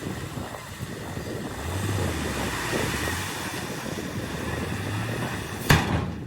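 Shantui DH17 C2 bulldozer at work, its diesel engine running with a low hum that swells twice amid a steady rushing noise. A single sharp clank near the end is the loudest sound.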